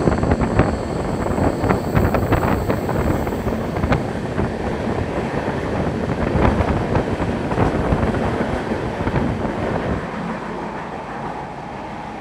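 Moving passenger train heard from aboard: wheels rumbling and clattering over the rails with many irregular knocks, and air rushing past with wind on the microphone. The running noise eases a little near the end.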